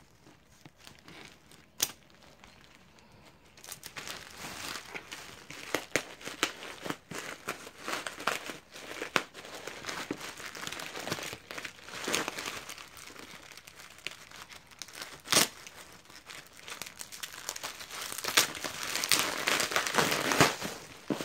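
A single scissors snip through plastic wrap about two seconds in, then bubble wrap and plastic film crinkling and rustling as a box is worked out of its packaging, with a few louder sharp crackles.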